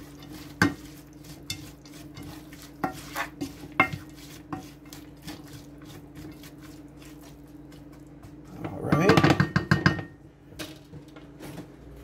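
A utensil stirring chopped celery, onions and carrots in a pot, with scattered clinks and scrapes against the pot. About nine seconds in there is a louder burst of rapid scraping and clatter. A steady low hum runs underneath.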